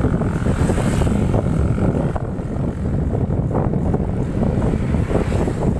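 Wind blowing across a phone's microphone as it is carried on a moving bicycle: a steady, loud low rumble with no break.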